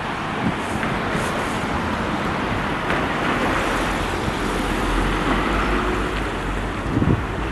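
Road traffic going by: a steady rush of vehicle noise, with a low rumble building about halfway through as a heavier vehicle draws near.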